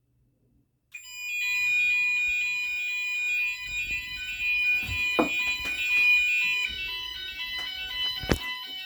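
Fire alarm sounders of a Gent Vigilon system going off together when a detector is set off in test, starting about a second in: a steady high tone that stops near two-thirds of the way through, mixed with stepped, pulsing tones. Two sharp knocks, about 5 and 8 seconds in.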